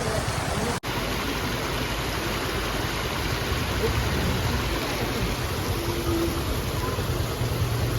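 Steady rushing noise of heavy rain and floodwater on a waterlogged road, with a low rumble underneath. The sound drops out for an instant about a second in.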